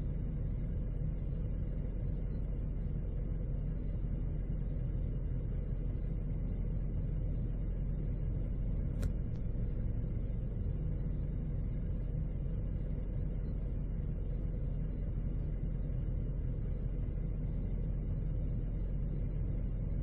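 Steady low rumble heard inside a parked car's cabin, from the idling engine and rough surf outside, muffled by the body of the car. A faint click about nine seconds in.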